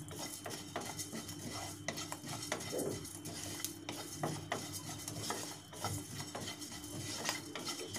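A spatula stirring whole cumin, coriander and fennel seeds as they dry-roast in a non-stick pan: quiet, irregular scraping and ticking of the seeds against the pan.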